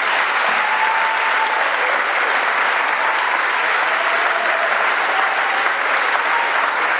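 Audience applauding steadily at the end of a choir's carol.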